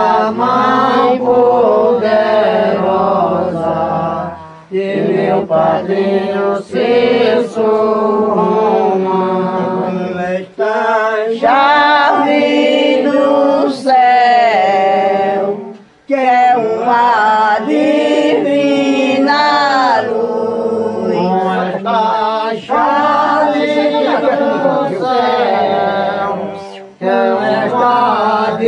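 Penitents chanting a religious hymn without accompaniment, their voices singing in long drawn-out phrases broken by brief pauses for breath.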